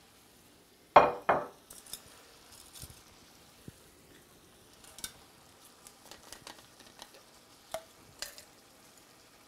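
Metal tongs knocking against a cast iron pan, two sharp clacks about a second in, then a few lighter clinks as bacon and meat are moved around, over a faint sizzle from the pan.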